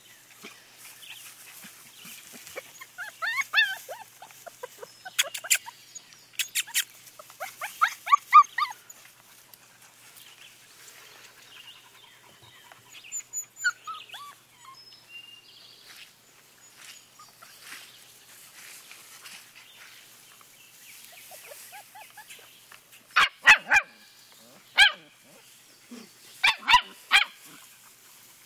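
Husky–shepherd mix puppies whining and yipping on and off, with a run of loud, sharp yaps near the end.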